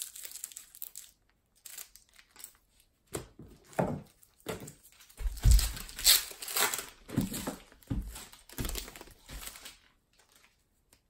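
Scissors snipping a trading card pack, then its wrapper crinkling and tearing as it is pulled open by hand in a run of rustling surges, loudest about halfway through.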